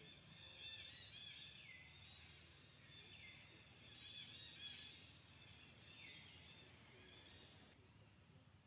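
Faint outdoor chorus of birds chirping and warbling, with several short calls that sweep downward in pitch.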